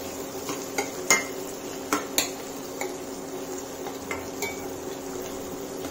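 A utensil stirring and scraping softened tomatoes in a kadhai over the heat, with a faint sizzle. Several sharp clinks and knocks of metal on the pan come at irregular moments; the loudest is about a second in.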